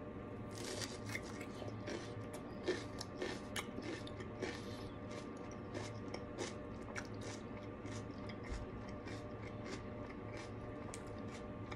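Crisp crunching and chewing of raw bell pepper topped with cream cheese: a quick run of crunches in the first few seconds, the sharpest about three seconds in, then sparser, softer chewing.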